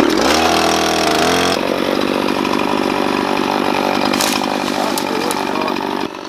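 Chainsaw revving up, its pitch rising over the first second and a half, then running steadily at high speed; it drops off near the end.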